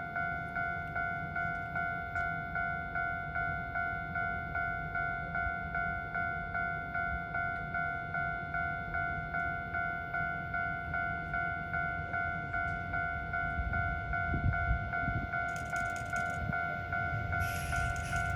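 Japanese level-crossing warning bell ringing, an electronic two-note chime repeating about twice a second. Near the end the low rumble and hiss of an approaching electric train rise under it.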